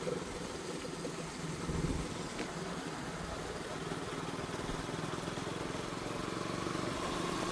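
Sport motorcycle cruising steadily on the highway: a low, even engine note under wind and road noise. A faint steady whine comes in near the end.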